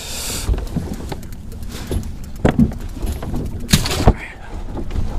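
Scattered knocks and rattles of gear being handled on a fishing boat, over a low steady rumble; two of the loudest knocks come close together a little under four seconds in.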